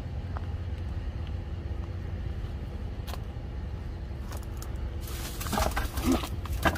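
A steady low rumble, then about five seconds in a burst of leafy shrubs rustling with a few sharp clicks as a person lunges into the bushes to grab a hiding iguana.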